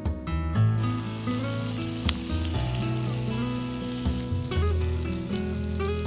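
Food sizzling in a hot pan, the frying hiss starting about a second in and continuing steadily, under background music.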